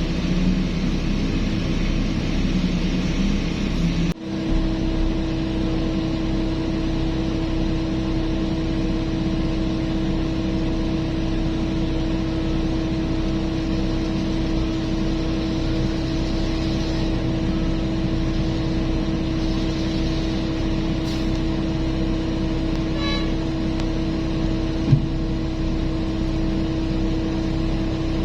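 Diesel engines of heavy mining machinery running steadily, with a constant hum. The sound breaks off briefly about four seconds in, and there is one short click near the end.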